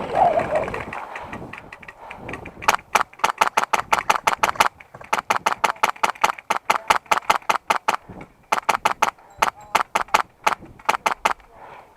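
Airsoft rifle firing long strings of rapid shots, about six or seven a second, in three runs with short breaks between.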